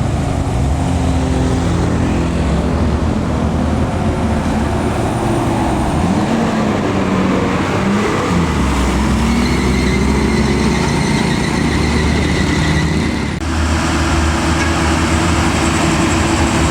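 Heavy road vehicles, buses and trucks, passing with their engines running; the engine pitch rises and falls several times, and the sound changes abruptly about 13 seconds in.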